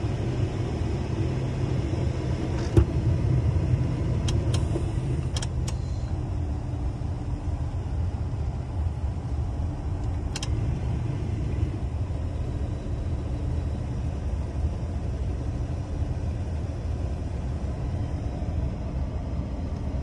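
Datsun 280ZX's 2.8-litre straight-six idling, heard from inside the cabin while the engine is still warming up. A few sharp clicks come in the first half as the heater controls are switched over.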